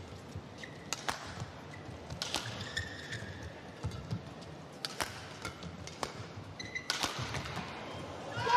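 Badminton rally: about four sharp racket strikes on the shuttlecock, a second or two apart, with short high squeaks of players' shoes on the court mat in between.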